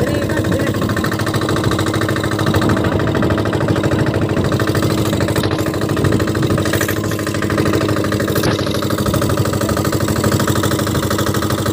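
A boat's engine running steadily under way, heard from on board: a loud, fast, even chugging.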